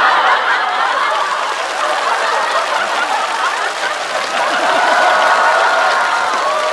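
Studio audience laughing and applauding together after a punchline, a long, loud wave of mixed laughter and clapping.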